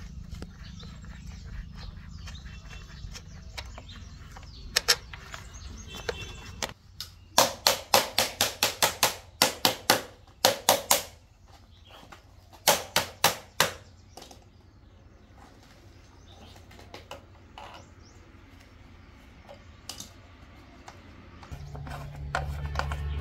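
Sharp metal-on-metal strikes, a tool hitting a steel concrete mould: a quick run of about a dozen strikes, a short pause, then four more.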